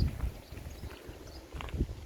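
Footsteps: irregular low thumps with light clicks, one heavier step near the end.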